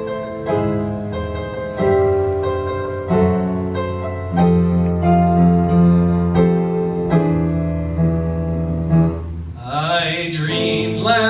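Piano playing an introduction of sustained chords, a new chord struck every second or so. Near the end a man's solo voice comes in singing over it.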